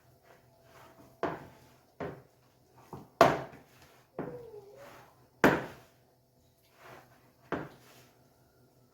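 Hard kitchen things knocking and clattering against a counter or bowl, about six separate sharp knocks spread irregularly, the loudest about three and five and a half seconds in.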